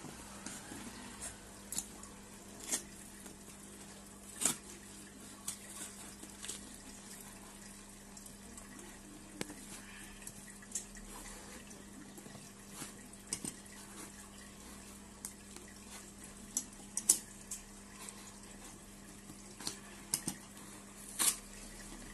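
A plastic-wrapped, taped parcel being cut open with scissors. Scattered sharp crinkles, snips and taps come at uneven intervals over a faint steady hum.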